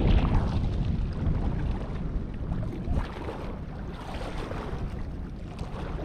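Wind buffeting the microphone with a low rumble, over water lapping against shoreline rocks; strongest at first, easing after a second or two.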